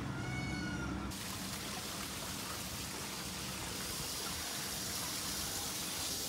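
Water pouring steadily down a wooden gem-panning sluice flume, a continuous rush and trickle.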